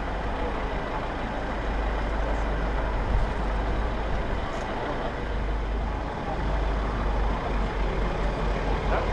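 A fire engine's diesel engine running with a steady low rumble as the truck creeps forward at walking pace.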